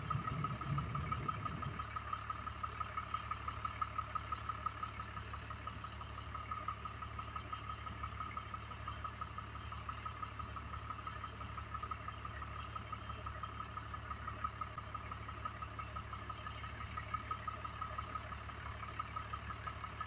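Motorhome engine idling steadily. A steady, rapidly pulsing high tone sits over the low hum throughout.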